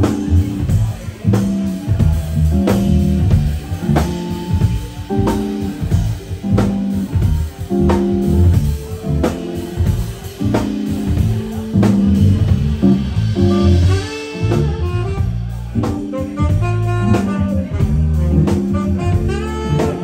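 Live band playing an instrumental groove: electric bass and drum kit under saxophone and electric guitar, with a quick run of short notes near the end.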